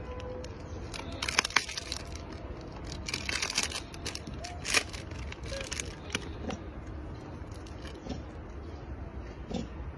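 Plastic snack-cake wrapper crinkling and tearing in several short bursts as a macaque bites and pulls it open.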